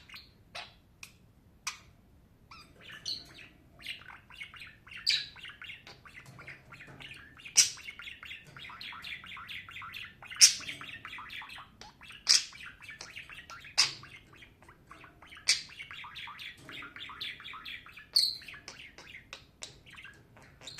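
Budgerigar warbling: a continuous, fast, chattering stream of short chirps, punctuated every couple of seconds by louder, sharp chirps.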